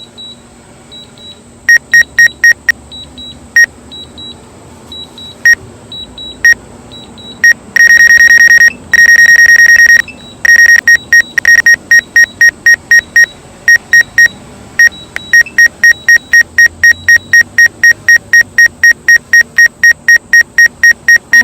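DJI Mavic 2 Pro remote controller beeping while Return to Home is active: scattered loud beeps at first, a rapid run of beeping for about two seconds partway through, then a steady beep about twice a second.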